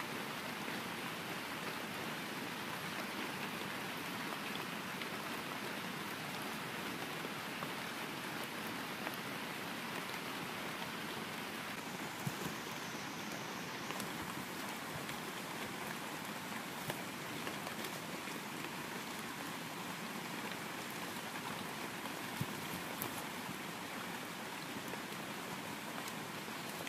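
Steady rain falling, with an occasional sharper tick.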